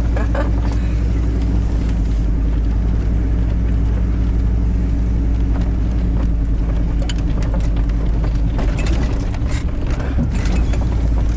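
Truck engine droning steadily at low speed while four-wheeling over a rocky track, with scattered knocks and rattles as it jolts over the rocks.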